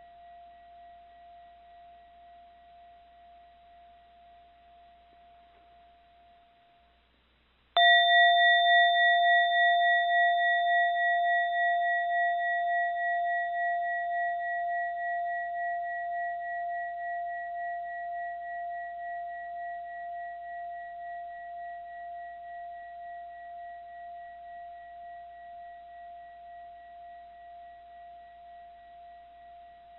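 A mindfulness bell: the last ring fades out, then the bell is struck once about eight seconds in. It rings on with a long, slow fade and a gentle regular waver in its tone.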